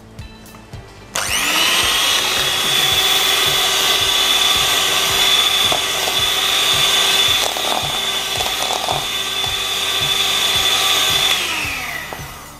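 Sayona electric hand mixer switched on about a second in, spinning up and running steadily with a high whine as its wire beaters cream butter and powdered sugar in a steel bowl, then winding down and stopping near the end.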